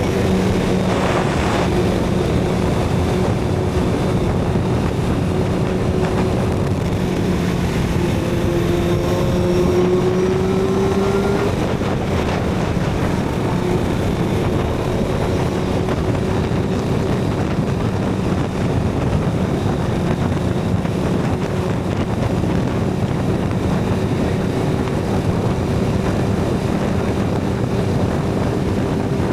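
Suzuki GSX-R750 inline-four with a Yoshimura TRS exhaust, riding along at a steady pace under heavy wind rush on the microphone. The engine note rises about eight seconds in, breaks off near twelve seconds, then holds steady again.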